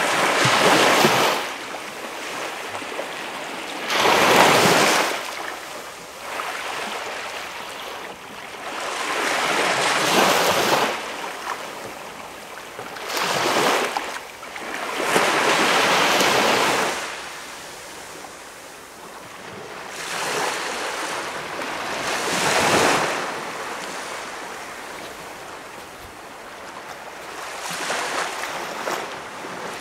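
Small waves breaking and washing up on a calm beach, each one swelling and fading, about every three to six seconds.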